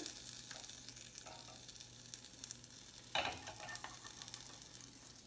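Faint sizzling with light crackles from hot chili and cheese in a hot omelette pan. A short clatter of metal cookware a little past three seconds in.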